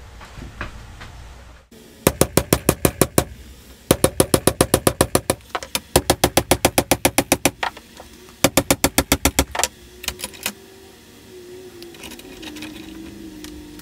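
Hammer striking 3/8-inch rusted steel rebar clamped in a bench vise to bend a hook into it: four quick runs of sharp metallic blows, about seven a second.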